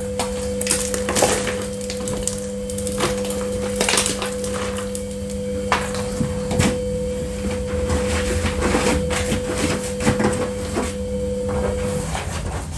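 Loose ice chunks and bits being knocked, broken and scraped out of a defrosting freezer compartment, a busy run of irregular cracking, knocking and crunching. A steady hum underneath stops near the end.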